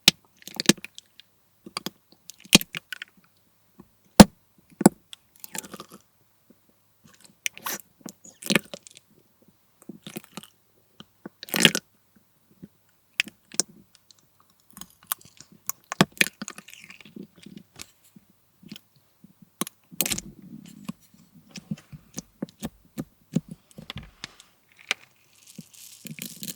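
Slime full of slushie beads (small plastic pellets) being squeezed and pressed by hand, giving irregular crunchy crackles and sharp pops. A few of the pops are much louder than the rest. About two-thirds of the way through there is a brief softer, lower squish.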